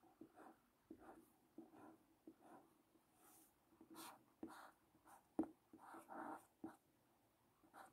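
Faint strokes of a felt-tip pen on paper, writing Chinese characters and then pinyin letters: a series of short, separate scratches, with one sharper tap about five and a half seconds in.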